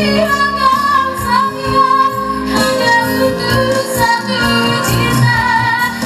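Background music: a song with a woman singing over an instrumental backing with a steady beat.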